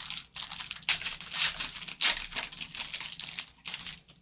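Wrapper of a 2023 Panini Phoenix Football hobby pack being torn open and crinkled by hand: irregular rustling and crackling that stops abruptly at the end.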